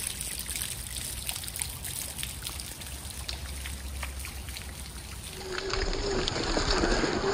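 Rainwater dripping and trickling, with many small drops falling from the underside of a concrete bridge onto wet ground. About six seconds in, a steady whine comes back as the 1/10-scale RC Jeep's 540 brushed motor drives it through the wet ground, and the sound gets louder.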